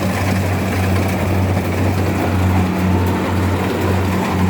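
Rice harvester's engine running steadily, a constant low hum under a dense mechanical rattle and whir.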